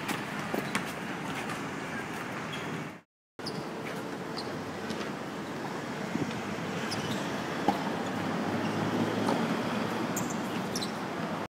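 Steady outdoor background noise with a low traffic-like rumble and a few faint clicks, cut off briefly by a moment of dead silence about three seconds in.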